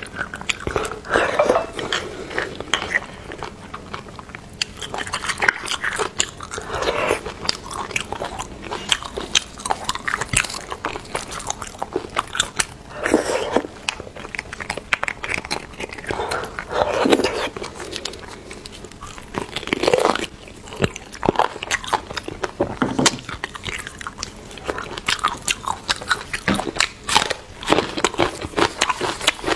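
Close-miked mouth sounds of eating soft beef bone marrow: wet sucking, slurping and chewing in repeated bursts, with the clink and scrape of a metal spoon inside the bone.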